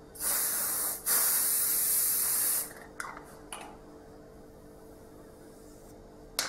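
Silhouette aerosol hairspray can spraying in two bursts, a short one and then a longer one of about a second and a half, soaking a section of hair. A few light clicks follow.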